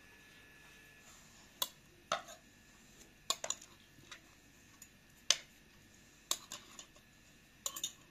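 Forks and spoons clinking against china plates and a glass serving platter during a meal: about ten sharp, irregular clicks.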